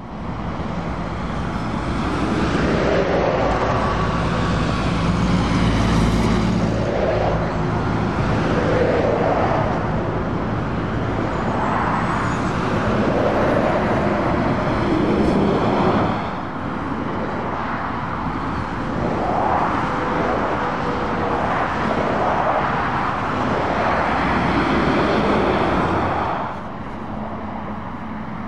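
Motorway traffic: heavy lorries and cars passing one after another, tyre and engine noise swelling and fading as each goes by, with a lorry engine droning low in the first several seconds. The level drops abruptly twice.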